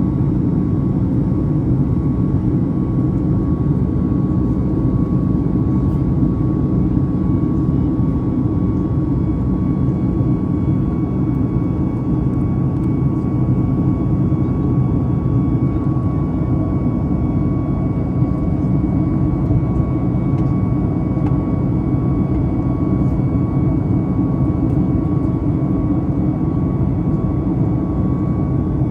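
Cabin noise of a Boeing 737 MAX 8-200 heard from a seat over the wing during the climb after takeoff: its CFM LEAP-1B turbofan engines running at steady climb power. It is a steady low rumble with a faint, even high whine above it.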